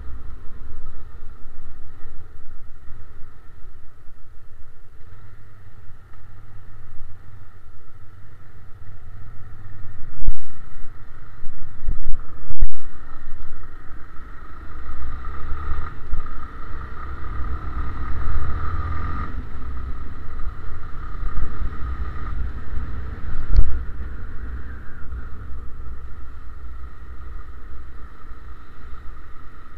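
Motorcycle riding through town, its engine and wind rumble heard muffled through a sealed waterproof camera case. A few louder thumps come in the middle, one of them a sharp knock.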